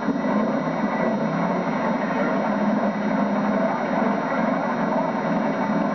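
Demolition derby cars' engines running on the track, a steady, even noise with no separate crashes standing out, off a low-quality VHS camcorder recording.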